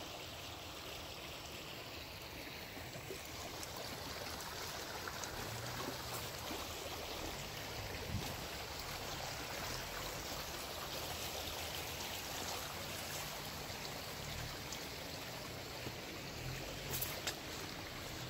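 Muddy rainwater runoff flowing over a washed-out dirt street: a steady rush and trickle of water. A couple of brief knocks come near the end.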